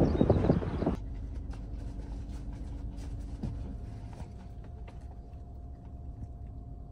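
Wind noise on the microphone for about the first second. It then cuts to a steady low rumble inside a car, with a faint hum and scattered light clicks and rustles.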